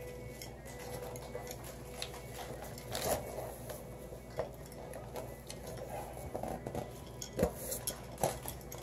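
A few light, scattered clicks and taps from small objects being handled, seconds apart, over low steady room noise.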